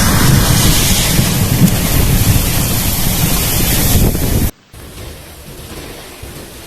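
Violent rainstorm with heavy wind buffeting the microphone, a loud low rumbling rush over the hiss of rain. About four and a half seconds in it cuts off for a moment and comes back as much quieter, steady rain.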